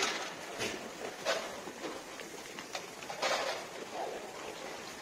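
Goats pulling and chewing dry hay at a feeding rail: irregular rustling and crunching of hay, louder about three seconds in.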